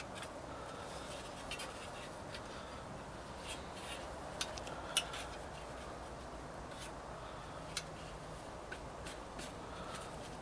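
Faint rustling and rubbing of cotton rags being pressed down into a small steel tin by hand, with a few scattered sharp clicks.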